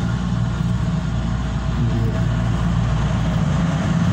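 Steady low mechanical hum of a running machine.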